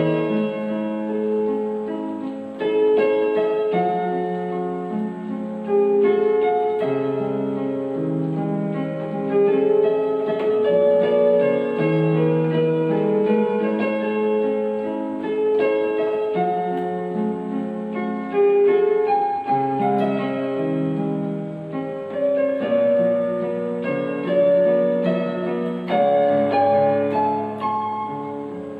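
Electronic keyboard played with a piano voice: a two-handed piano piece, a melody of held notes over sustained lower chords.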